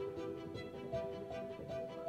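Background music: long held notes over a steady beat of about four pulses a second.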